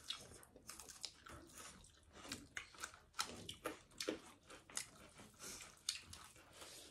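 A person eating and chewing, with irregular small clicks and mouth smacks.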